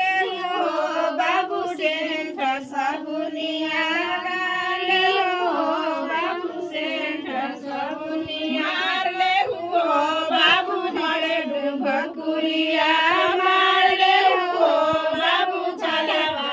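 A group of women singing a wedding song together, with voices and no instruments, in phrases separated by short pauses for breath.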